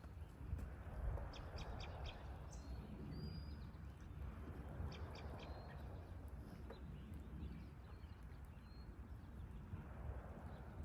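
Faint outdoor ambience: short high bird chirps every second or two, with a quick run of chirps early on, over a steady low background rumble.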